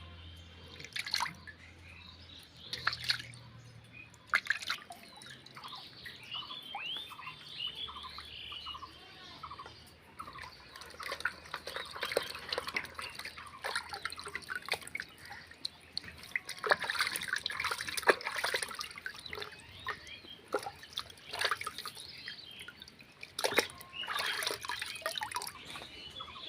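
Water splashing and dripping in irregular spurts, with birds chirping now and then.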